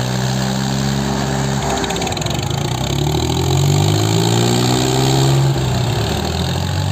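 Two Swaraj 855 tractors' three-cylinder diesel engines running hard, pulling against each other while coupled rear to rear. The engine note sags about two seconds in and climbs back a second or so later as the engines labour under the load.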